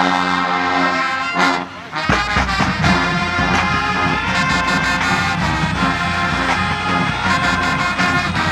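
Music led by brass horns holding long notes; about two seconds in, a beat with heavy bass comes in and keeps going.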